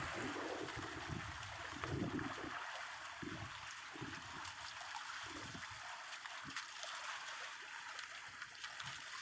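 Seawater lapping and gurgling steadily, with a few faint low thumps.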